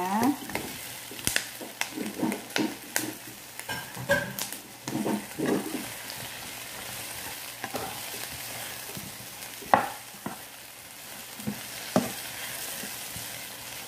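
Onions and bell peppers sizzling in hot oil in a non-stick pan as fried chicken pieces are tipped in and stir-fried with a slotted spatula. Scrapes and knocks of the spatula against the pan sound over a steady sizzle, the sharpest knock about ten seconds in.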